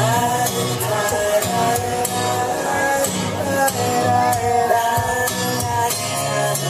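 A slow song with a singing voice over a steady, light percussion beat.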